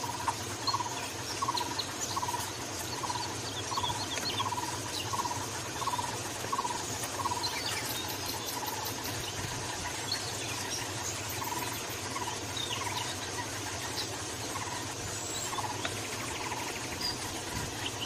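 Taiwan barbet calling: a series of short low notes, about two a second, breaking off for a few seconds about halfway and then starting again. A steady high insect buzz runs underneath.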